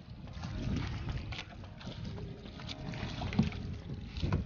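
Wind buffeting the microphone and water sloshing against a small outrigger fishing boat on choppy sea, with a few light knocks as fishing line and tackle are handled.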